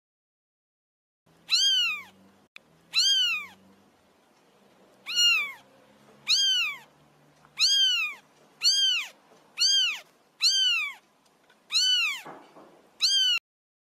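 A cat meowing: about ten short, high-pitched meows, each rising then falling in pitch, spaced roughly a second apart.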